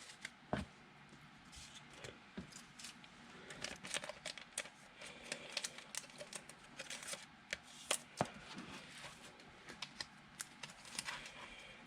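Faint, scattered clicks, taps and light rustles of trading cards being handled and flipped through, card stock slipping against card stock.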